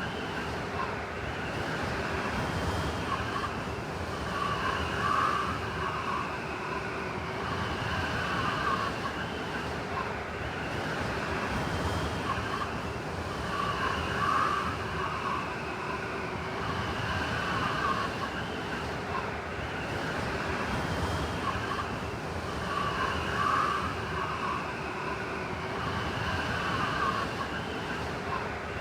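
Blizzard wind blowing steadily, with howling, whistling gusts that swell and fade about every nine seconds over a constant rush.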